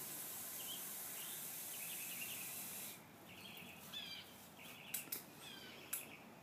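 Small birds chirping, over a steady high hiss that cuts off about three seconds in, with a few sharp clicks near the end.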